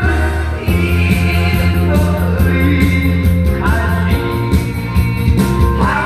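A man sings into a microphone through a PA system over a loud amplified backing track with a steady drum beat.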